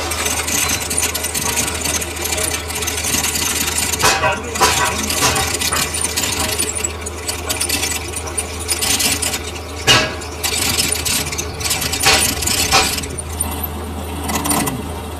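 Metalworking in a lathe shop: metal scraping and clinking over a steady low machine hum, with sharp metal knocks about four, ten and twelve seconds in.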